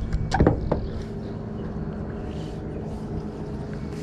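A boat motor running with a steady hum, with a few sharp knocks about half a second in.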